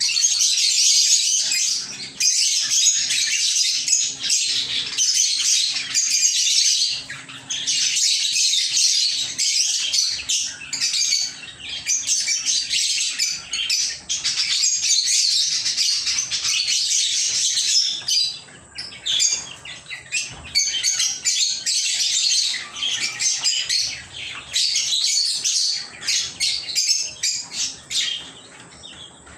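Pet lovebirds chirping in a dense, continuous stream of high-pitched calls, which thins out briefly about two-thirds of the way through and again near the end.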